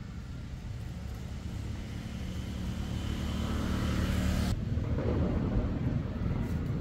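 A motor vehicle's engine rumbling with a steady low hum that grows louder over the first few seconds and breaks off abruptly after about four and a half seconds, leaving a lower rumble.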